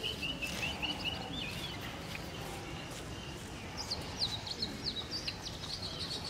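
Small birds chirping and singing in quick, high, warbling notes, in two spells: one in the first second or two and another from about four seconds in, over a steady outdoor background hum.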